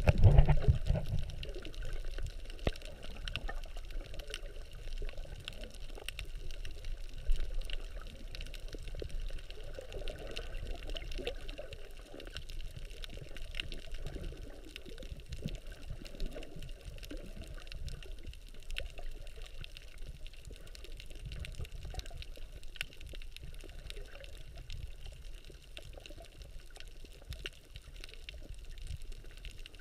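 Water sloshing and gurgling around a camera recording underwater, muffled and irregular, loudest in the first second, with faint scattered clicks throughout.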